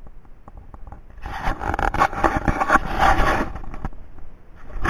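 Handling noise from a handheld camera: scraping and rubbing on the microphone with small clicks as the camera is turned around, loudest in the middle.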